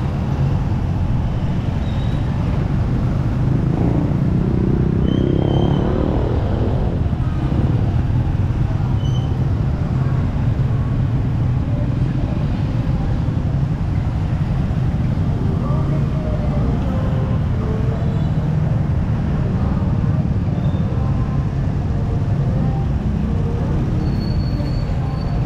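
Street traffic dominated by motorcycle and motorcycle-tricycle engines: a steady low engine rumble, with one engine rising in pitch as it speeds up and passes about five seconds in.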